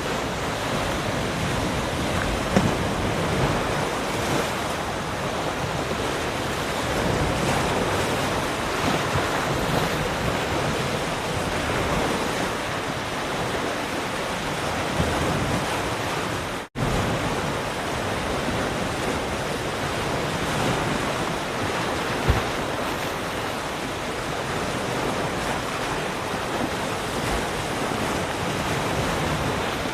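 Ocean surf: waves breaking and washing ashore in a continuous, steady wash of noise. The sound drops out for an instant just past halfway, then resumes.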